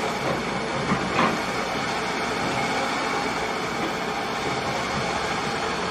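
Kobelco hydraulic excavator's diesel engine running steadily as it digs, with two short knocks about a second in.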